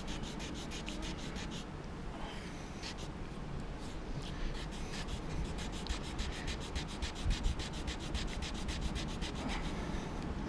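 Fire plow in use: a wooden stick rubbed fast back and forth along a groove in a dry wooden log, a rapid, even run of wood-on-wood scraping strokes. The rubbing builds friction heat to raise an ember for fire.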